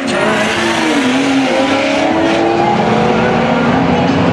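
Two cars, a Honda S2000 roadster and a white BMW SUV, accelerating hard side by side in a drag race, their engines revving up and dropping back in pitch at each upshift, a couple of times.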